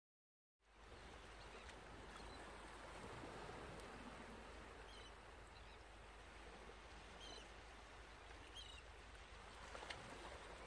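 Near silence: a faint steady hiss of room tone that fades in just after the start. A few faint high chirps and a couple of soft clicks come near the end.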